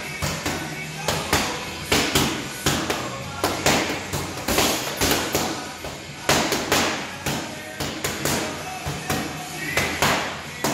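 Boxing gloves smacking against focus mitts in quick, irregular combinations, several sharp hits a second with short pauses between runs.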